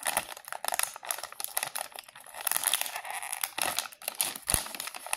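A plastic candy wrapper crinkling and crackling in irregular bursts as it is pulled and torn open by hand.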